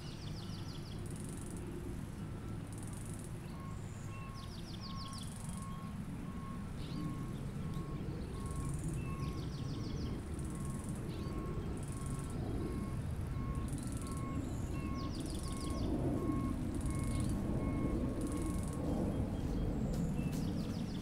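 Spring outdoor ambience of birds singing: high chirps repeating every second or so, short rapid trills now and then, and an even series of short piping notes. A steady low rumble lies underneath and grows a little louder in the second half.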